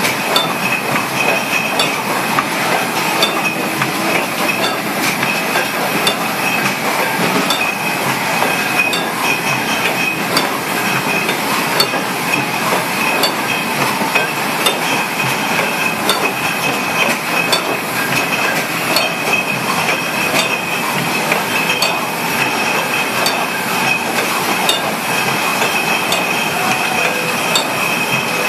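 Wine bottling line running: glass bottles clinking and knocking as the filler and rotary capper move them along, over a steady machine noise with a high whine.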